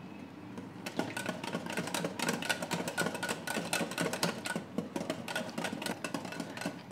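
Wire balloon whisk beating thick mango purée in a glass bowl: a fast, uneven run of clicks and taps as the wires strike the glass, several a second, lighter for about the first second.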